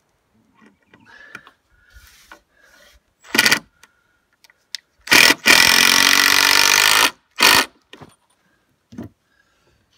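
Cordless drill-driver driving a screw into pine lumber: a short burst, then a steady run of about two seconds, then a brief final burst.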